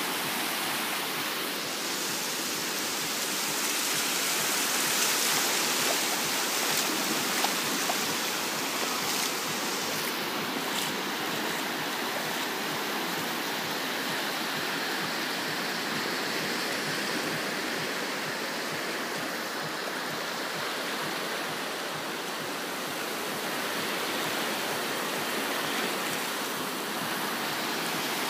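Sea water washing against the shore: a steady rushing hiss that swells a little and eases again.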